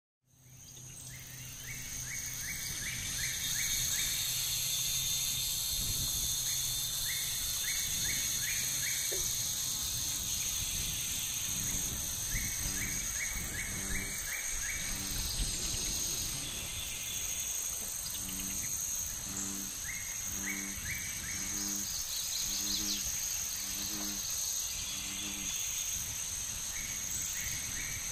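Added swamp-ambience sound effect fading in at the start: a steady high insect buzz, short trills of chirps every several seconds, and from about midway a low call repeating about once a second.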